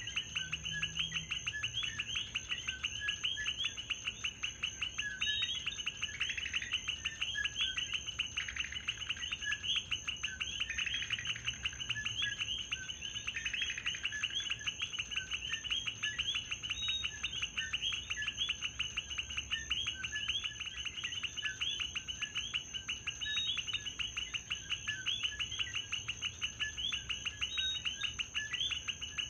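Night chorus of common coquí frogs: many overlapping short chirping calls, dense and continuous, with a steady high tone above them.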